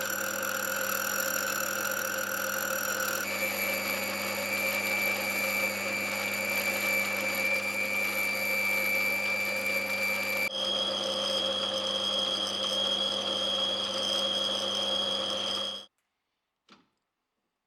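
Mini lathe running at about 80 rpm while turning Inconel 718: a steady motor hum with a high whine. The whine's pitch jumps twice where the shot changes. The sound cuts off suddenly near the end, followed by a single faint click.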